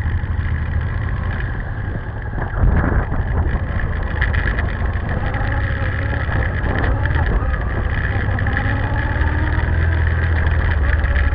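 Motorcycle engines running, the filming Honda Transalp's V-twin among them, getting louder about two and a half seconds in as the bikes pull away and ride on.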